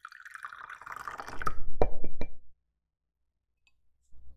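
Water poured from a plastic measuring cup into a small glass bowl: a trickling stream that grows louder, ending with a few sharp taps and drips about two seconds in.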